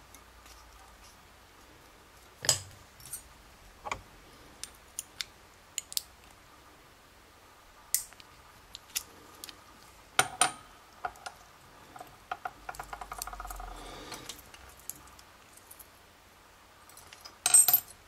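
Small metal clicks and taps of a brass lock cylinder being taken apart, its plug pushed out of the threaded body with a follower rod, with a brief rapid rattle about two-thirds of the way through and a few louder clicks near the end.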